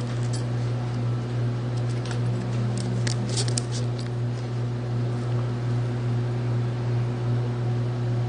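A steady low hum with a few light clicks about three seconds in.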